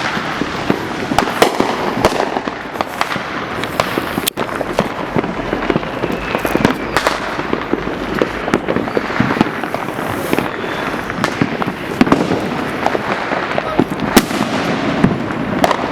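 Many fireworks and firecrackers bursting in overlapping bangs and crackles. Sharp reports go off every second or so over a continuous crackling din, with a few faint whistles.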